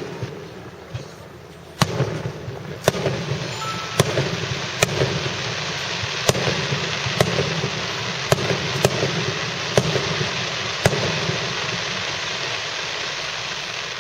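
Aerial fireworks in a finale barrage: sharp bangs about once a second over a dense, continuous crackle of bursting shells, the bangs stopping after about eleven seconds while the crackle slowly thins.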